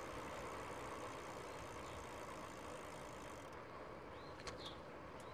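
Faint steady rushing of a bicycle rolling downhill, wind and tyre noise, with a couple of faint clicks about four and a half seconds in.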